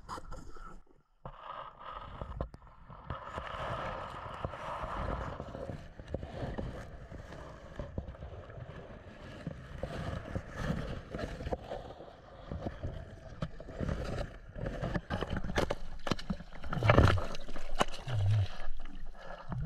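Water sounds picked up by a camera moving underwater through reeds: scraping and gurgling with scattered knocks. Near the end comes a louder burst of splashing and low thumps as the camera breaks the surface.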